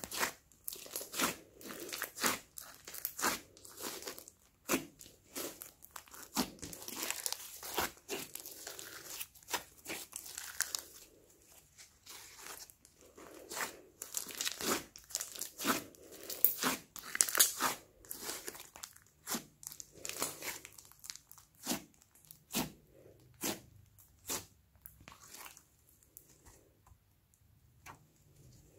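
Thick slime mixed with small foam beads being squeezed and kneaded by hand: irregular sticky pops and crackles, dying down briefly near the end.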